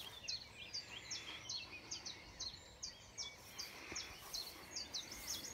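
Dawn chorus of songbirds: a steady run of short, high chirps, two or three a second, over fainter twittering.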